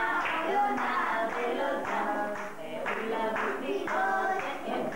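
Children and a woman singing a song together without instruments, with some hand clapping along.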